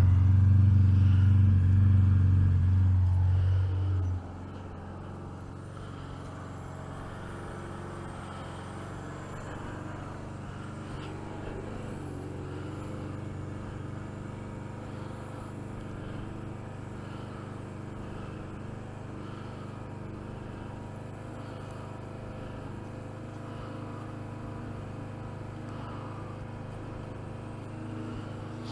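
Suzuki GSX 750 motorcycle's inline-four engine idling steadily. It is louder for the first four seconds, then drops suddenly to a lower, even level.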